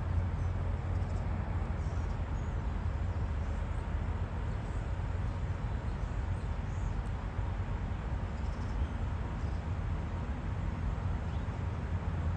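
Steady low rumble of road traffic and engines around an urban roadside, with a few faint bird chirps now and then.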